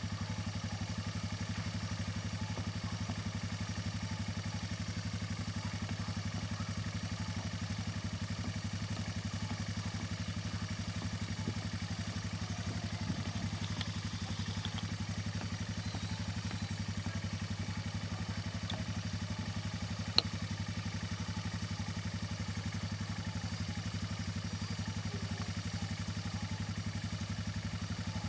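ATV engine running at a steady low idle, an even hum with no revving. A single sharp click about two-thirds of the way through.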